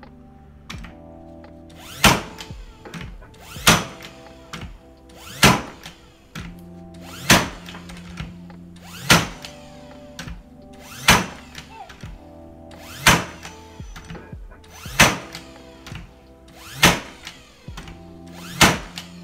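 Craftsman V20 cordless 16-gauge finish nailer firing nails into wood: ten sharp shots about two seconds apart, starting about two seconds in. Background music plays under them.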